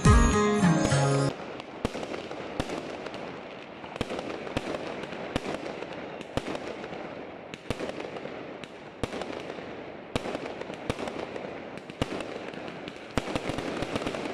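Aerial fireworks going off: a string of sharp bangs, about two a second, over a continuous crackling hiss. Music plays for about the first second and then cuts off.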